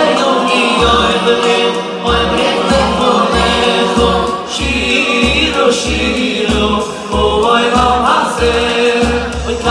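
A Jewish choir of men and boys singing with a lead singer over live band backing with a steady bass beat.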